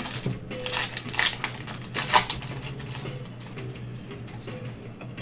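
Plastic card-pack wrapper crinkling and crackling as it is handled, busiest in the first three seconds, then quieter.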